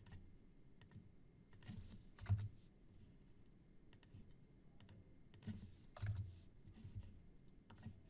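Faint computer mouse clicks and keyboard key presses, a dozen or so scattered sharp clicks, with a couple of duller knocks about two and six seconds in.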